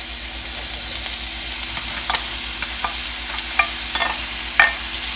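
Vegetables sizzling in hot oil in an electric skillet, a steady hiss, while diced bell peppers are scraped off a plate into the pan, the utensil clinking sharply against the plate and pan about ten times.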